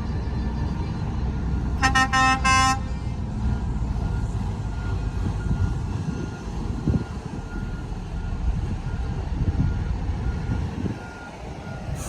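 Heavy diesel earthmoving machinery rumbling steadily. A horn toots in a few quick blasts about two seconds in, then a reversing alarm beeps about twice a second until near the end.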